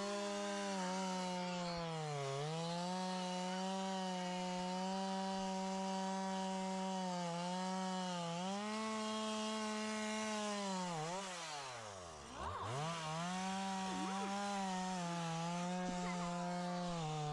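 Chainsaw running at high speed while felling a tree, its steady pitch dipping briefly several times. About twelve seconds in the revs drop right down and then climb back to full speed.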